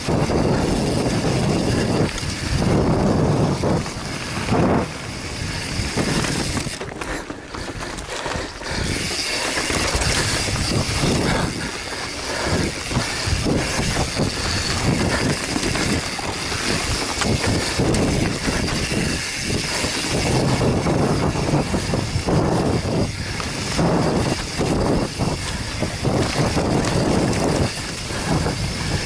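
Wind buffeting a helmet-mounted microphone during a fast ride down a dirt trail, over a constant rumble and rattle from the tyres on dirt and leaves. The noise swells and dips with the terrain.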